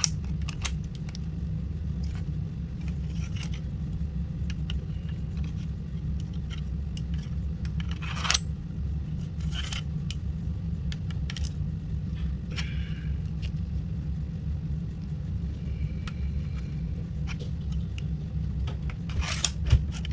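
A few scattered metallic clicks and scrapes as the fittings of a Type 95 NCO sword are handled during reassembly, with a cluster of clicks near the end, over a steady low hum.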